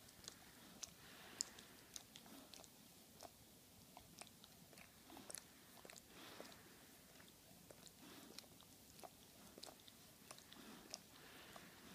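A dog licking another dog's face: faint, irregular wet clicks and smacks of tongue and mouth.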